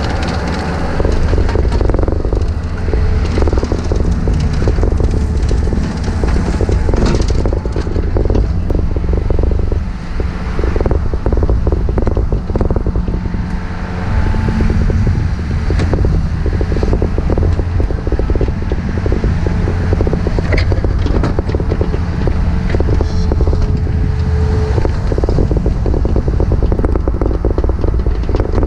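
Takeuchi TB153FR compact excavator running steadily under load, with a constant run of small knocks and scrapes from digging.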